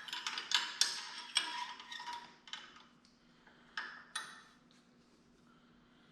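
A rapid run of light metallic clicks and clinks, then two more taps a couple of seconds later: small metal engine parts being handled as a push rod is fitted into the Kohler Courage 19 cylinder head.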